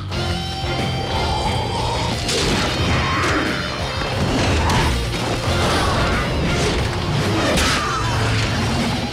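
Action-film soundtrack: dramatic music mixed with fight sound effects, several sharp crashes and blows scattered through it.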